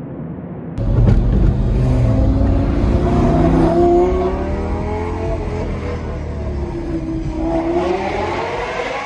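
Lamborghini Gallardo Superleggera's V10 with an aftermarket F1-style exhaust, revving hard in a tunnel. The engine comes in loudly about a second in and climbs in pitch for a few seconds, then sags and climbs again near the end.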